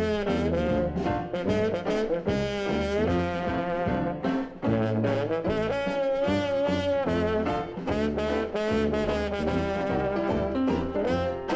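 Background music: an instrumental break of a blues song about a railroad, with brass horns carrying the melody over a bass line.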